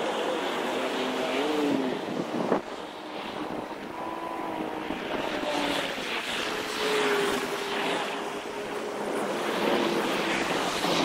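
Wind buffeting the microphone over the hum of traffic, with faint wavering engine-like tones and a single short knock about two and a half seconds in.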